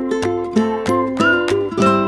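Background music: a plucked-string instrumental with a steady beat.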